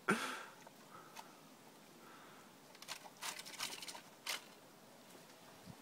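A dog chewing meat and bones from a plastic tray: faint crunching and clicking of teeth in short bouts, the most of them about three to four seconds in.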